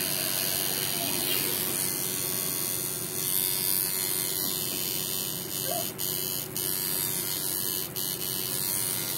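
Electric tattoo machine running steadily as it works over the skin.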